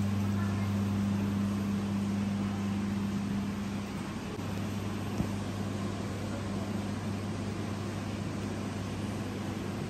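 Hypermarket room tone: a steady low machine hum with a hiss over it, like ventilation or air-conditioning plant running, and one short click about five seconds in.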